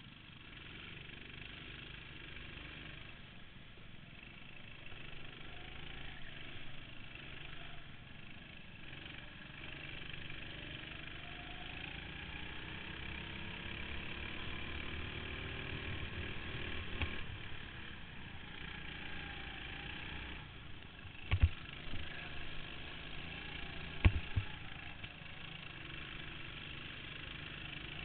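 Go-kart engines running on the track, their pitch rising and falling as the karts speed up and slow through the corners. Two sharp knocks, a couple of seconds apart, stand out about three quarters of the way in.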